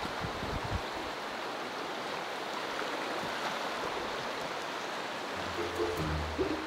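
Steady rushing of flowing water, an even hiss with no splashes standing out. Background music with a low repeating figure comes in near the end.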